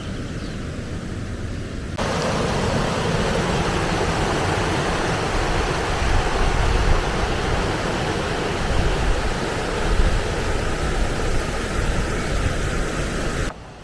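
Steady rush of river water. It jumps louder at a cut about two seconds in, then stops abruptly near the end.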